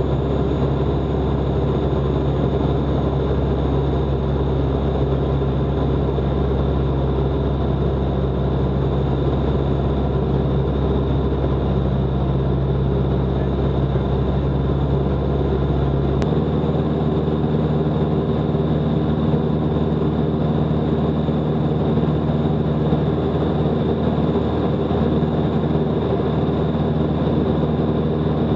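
Steady drone of a Van's RV light aircraft's piston engine and propeller heard from inside the canopy in cruise flight. The tone shifts abruptly about halfway through, with a brief click.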